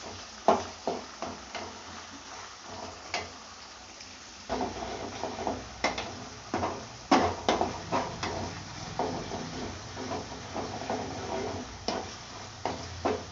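A spoon stirring onions and tomatoes sautéing in groundnut oil in a pan: irregular scraping knocks against the pan over a low sizzle. The stirring thins out for a couple of seconds about two seconds in, then picks up again.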